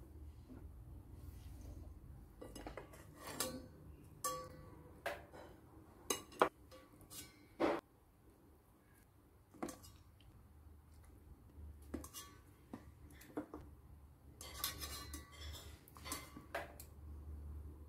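Kitchen tongs clicking and knocking against a plate and a stainless steel pot while stuffed bitter gourd pieces are set into the pot: a dozen or so irregular light clinks, with a small cluster near the end.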